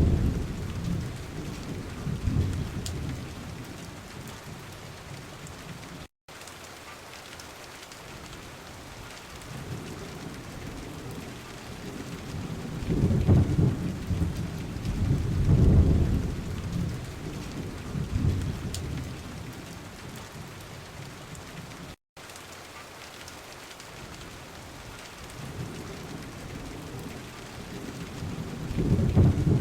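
Rain-sounds recording of steady rain with rolling thunder: low rumbles swell at the start, twice in the middle and again near the end. The sound drops out for an instant twice.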